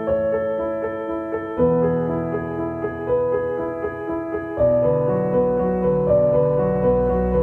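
Background instrumental music: a keyboard plays a repeating figure of short notes over held chords, and the chords change twice.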